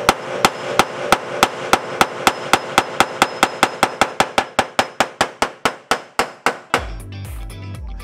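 Hammer blows on the sheet metal of a Mazda Miata's engine bay, beating it in to make room for a turbocharger. There are about four sharp strikes a second, getting faster, and they stop about seven seconds in.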